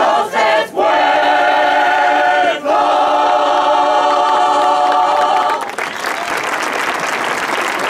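Choir singing the end of a song, closing on one long held chord; about five and a half seconds in the singing stops and applause breaks out.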